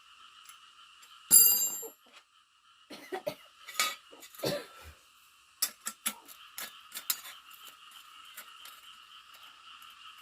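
A sharp metallic clink that rings on briefly about a second in, then a run of irregular clattering knocks and clicks, over a steady chorus of frogs and insects.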